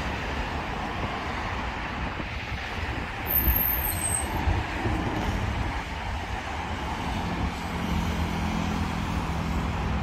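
Road traffic on a multi-lane city road: cars driving past with a steady rush of tyres and engines, over an uneven low rumble. A brief high squeak comes about three and a half seconds in, and a low engine hum joins from about seven seconds.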